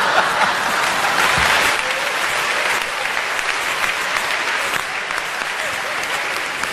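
Large theatre audience applauding, strongest in the first two seconds and then carrying on steadily.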